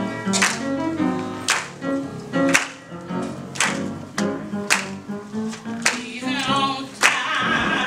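Gospel music: a choir claps in unison about once a second over held instrumental chords, and the choir's singing comes in about six seconds in.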